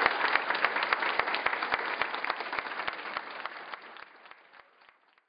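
Audience applauding, the clapping dying away gradually to silence near the end.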